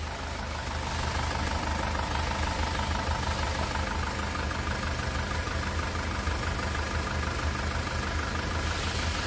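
2018 SsangYong Rexton Sports 2.2-litre diesel engine idling evenly and quietly, without shaking. The engine has just been rebuilt, with bored cylinders and a new crankshaft, pistons and bearings, and the heavy banging of its earlier broken crank cap bolt is gone.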